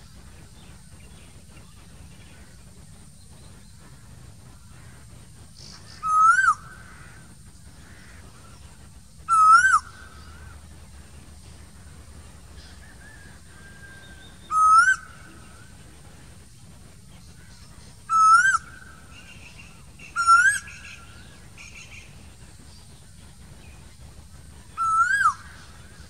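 Asian koel calling: six short, loud whistled calls, each rising then dropping in pitch, spaced a few seconds apart at irregular gaps. Faint chirps of other birds come in between.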